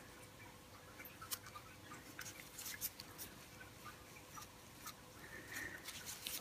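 Faint, irregular small clicks and light scraping from gloved hands handling a Suzuki SV650 front brake caliper body while pressing a rubber piston seal into its groove.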